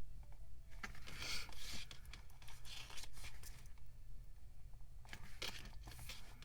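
Pages of a photobook being turned and handled, with paper rustling and sliding in two spells.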